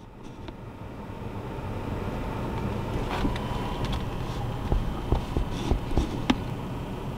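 Steady low rumble of a running vehicle that fades in, with a few scattered knocks and clicks in the middle.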